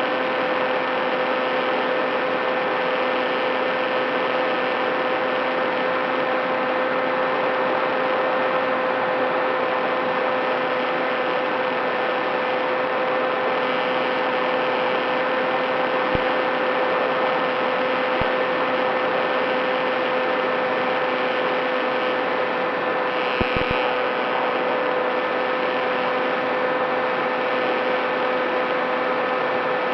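A radio-controlled model plane's electric motor and propeller running at steady throttle: a constant whine over a rushing hiss, with a few faint ticks near the middle and about three quarters in.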